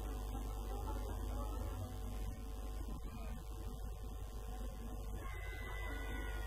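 Steady low electrical hum running underneath faint background noise.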